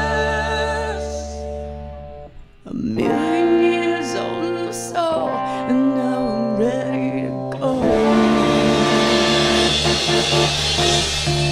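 Glam-punk rock band playing live with electric guitar. A held chord rings out and fades, then a guitar passage with bending notes follows. About eight seconds in, the full band comes back in loud.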